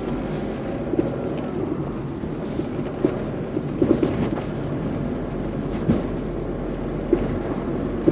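Worn anti-roll bar link on a 2005 Citroen Berlingo van knocking: half a dozen sharp, irregularly spaced knocks over a steady vehicle rumble, a couple of them coming close together near the middle.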